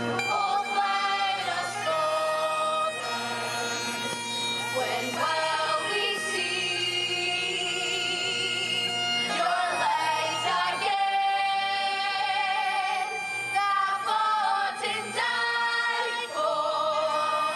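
Female voices singing wordless long notes with wide vibrato, some very high, over a steady low sustained accompaniment.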